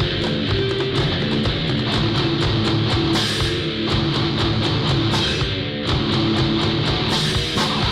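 Heavy rock instrumental passage: electric guitars over a drum kit keeping a steady, driving beat.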